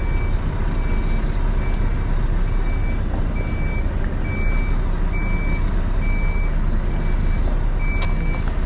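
Lorry reversing alarm beeping, one steady high tone about once a second, as the lorry backs into a parking space. The diesel engine runs with a heavy low rumble underneath, heard from inside the cab.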